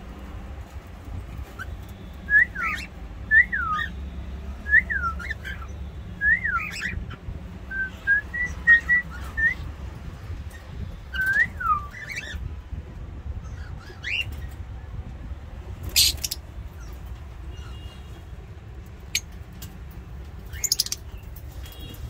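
Cockatiels giving short swooping whistle calls, about a dozen in quick succession, each rising and falling in pitch, then a couple of short sharp sounds later on over a low steady hum.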